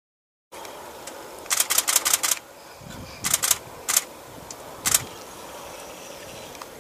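Camera shutter firing in rapid bursts: a run of about eight quick clicks, then a run of about four, then two single clicks.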